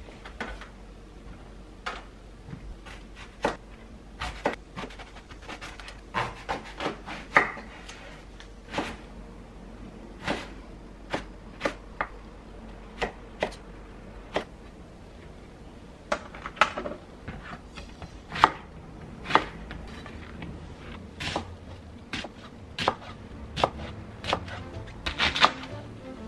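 Kitchen knife cutting eggplant, then shishito peppers, on a wooden cutting board. The blade strikes the board in irregular sharp knocks, often in quick runs of several cuts.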